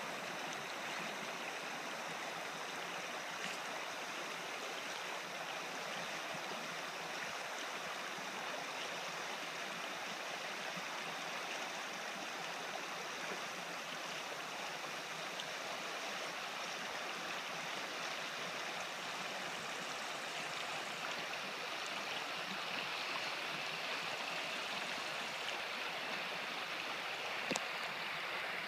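Shallow alpine stream running over a stony bed: a steady, even rush of water.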